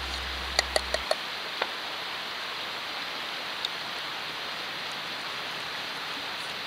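Wood fire crackling in a small fire pit: a steady hiss with a quick run of sharp pops in the first two seconds and one more pop a little later.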